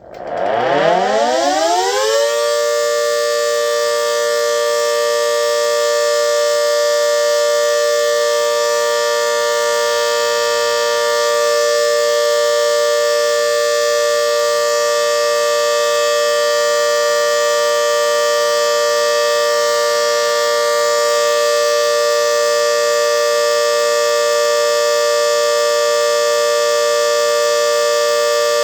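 GS CS-10V15QT electromechanical civil-defence siren winding up over about two seconds, then holding a steady, loud chord of several tones: the Alert signal. The siren's bearings are worn, per the title.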